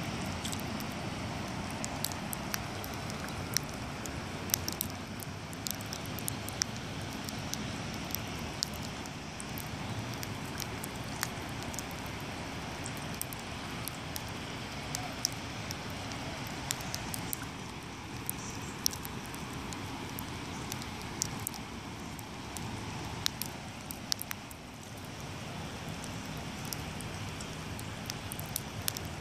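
Falling precipitation pattering: a steady hiss with many scattered sharp ticks of drops hitting nearby surfaces, over a low steady rumble.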